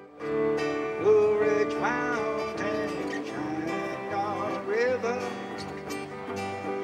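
A small live band playing a song on electric bass, acoustic guitar and electric guitar. The music comes in just after the start.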